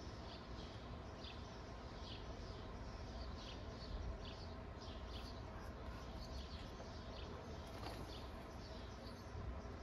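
Birds chirping: short high chirps that slide down in pitch and repeat about twice a second, over a steady low background rumble.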